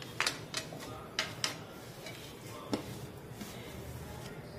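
A handful of light, irregular taps and clinks of a plastic container and metal spatula against a metal kadhai as grated amla is tipped into the pan.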